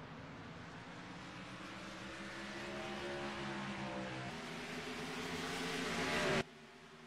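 Race car engine under acceleration, growing steadily louder with its note rising, then cutting off abruptly about six seconds in.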